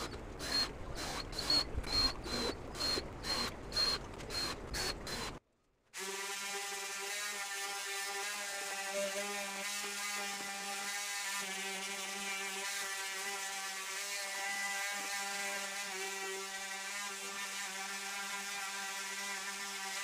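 A cordless drill drives pocket-hole screws into a wooden table frame in about a dozen short whirring bursts, each under half a second. After a cut, an electric sander runs steadily on the table top for the rest of the time.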